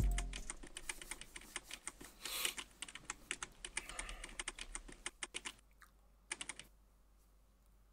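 Fast typing on a laptop keyboard: a dense run of quick, irregular key clicks that thins out after about five and a half seconds, with one short last flurry a second later. A low thump opens it and a brief rush of noise comes about two and a half seconds in.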